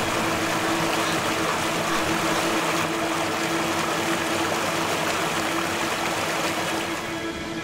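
Steady rushing noise with a constant hum running under it.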